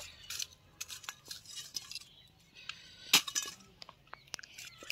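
Metal pliers picking lumps of charcoal out of a small steel bowl: scattered light clinks and taps of metal on steel and on the charcoal pieces, the sharpest right at the start and about three seconds in.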